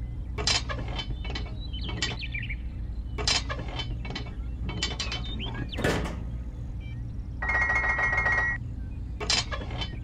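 Plastic clicks and rattles of a toy plough attachment being handled and fitted onto a model crawler tractor's hitch, with a short buzzing, ratchet-like sound about seven and a half seconds in, over a steady low hum.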